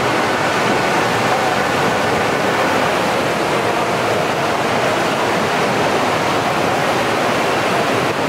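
Water falling from a large statue fountain's cascades, splashing in a steady, unbroken rush.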